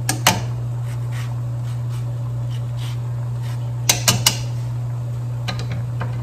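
A metal zester clinking against a stainless steel pot as lemon zest is grated over mussels: two sharp clicks at the start, three in quick succession about four seconds in, and fainter ones near the end, over a steady low hum.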